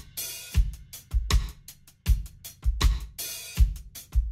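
A soloed drum bus from a recorded mix: kick, snare, hi-hats and cymbals playing a steady groove, with heavy low kick hits under busy hi-hat ticks. It is heard through Waves Scheps Parallel Particles, a parallel-processing plugin whose Sub harmonic enhancer is being turned up.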